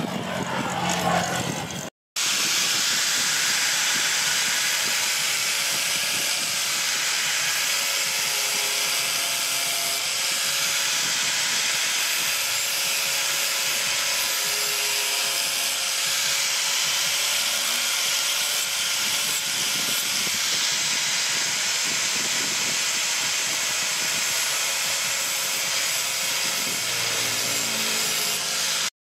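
Handheld angle grinder with a flap disc grinding the steel blade of a machete: a steady, hissing grind that starts about two seconds in.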